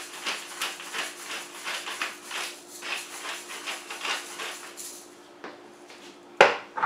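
Hand pepper mill grinding peppercorns: a run of short crunching grinds, about two to three a second, for some five seconds. Near the end comes a sharp knock as the mill is set down.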